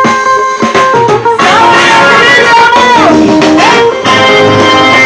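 Music: an instrumental passage of a song led by plucked guitar. A long held note in the middle slides down and back up.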